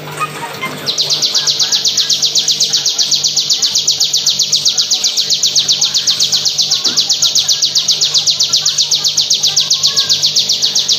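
Caged ciblek (bar-winged prinia) singing its 'bren': one long, rapid, evenly pulsed high trill that starts about a second in and runs on without a break. A faint steady low hum lies underneath.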